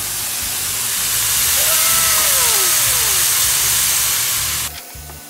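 Raw sliced bacon sizzling in a hot, dry wok, a steady loud hiss that cuts off suddenly near the end.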